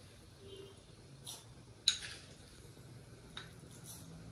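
A spoon tapping against a small bowl three times as dal is spooned into a tadka pan, the sharpest tap about two seconds in, over a faint steady low hum.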